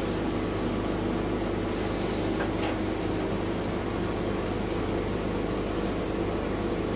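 Steady hum and rushing air of a ventilation fan, with several fixed tones in the hum.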